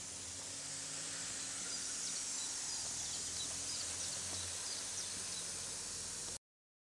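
Steady hiss of a garden hose's water jet spraying, with faint bird chirps from about two to four and a half seconds in; the sound cuts off suddenly near the end.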